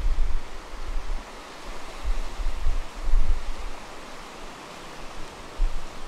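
Sea surf breaking and washing over dark lava rocks, a steady rushing hiss, with wind buffeting the microphone in uneven low gusts.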